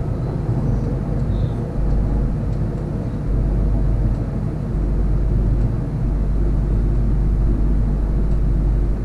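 Running noise of a Millennium electric train heard from inside its driver's cab: a steady low rumble of wheels on rail and traction equipment as the train runs along the line.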